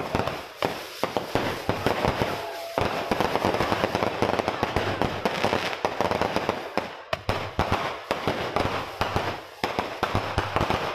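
Fireworks going off in rapid succession: a dense, continuous crackle of many pops and bangs with only brief lulls.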